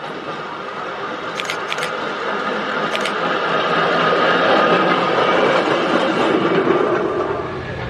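Small open rail trolley (draisine) rolling along the track past the listener, its wheels running on the rails, getting louder as it comes near and easing off as it goes by. Three short sharp clicks come in the first three seconds.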